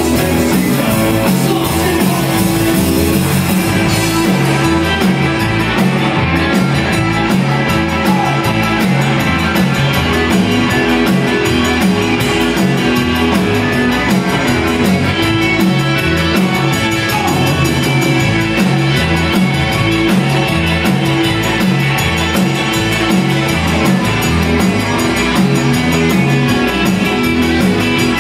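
Live Tex-Mex band playing steadily at full volume: electric guitars, button accordion, keyboard, bass guitar and drum kit, with a singer at the microphone.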